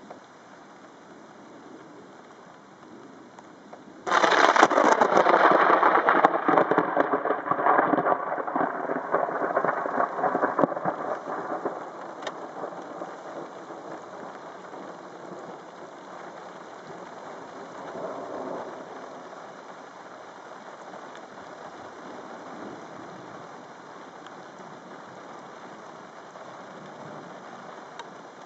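Thunder from a close lightning strike: after steady rain, a sudden loud, crackling clap about four seconds in that rolls on and fades away over the next several seconds, with rain falling throughout.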